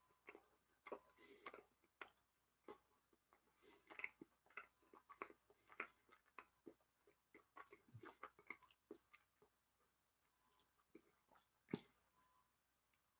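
Faint chewing of a mouthful of cheese: irregular small wet clicks and smacks, with one sharper click near the end.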